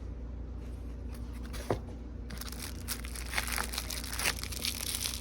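Packaging crinkling as it is handled, starting about two seconds in after a single click, with a low steady hum underneath.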